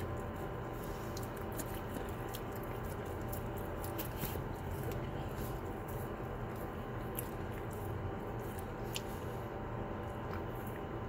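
A Saint Bernard chewing and smacking its lips on a mouthful of key lime pie: scattered short wet clicks, most of them in the first few seconds and another about nine seconds in.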